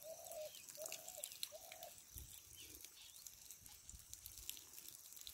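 Faint open-air ambience with a bird calling: four short, evenly spaced hooting notes in the first two seconds, then faint high chirps.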